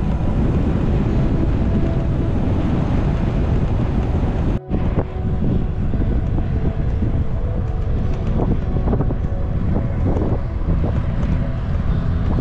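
Wind buffeting the microphone: a loud, steady low rumble, broken by a brief dropout at a cut about four and a half seconds in.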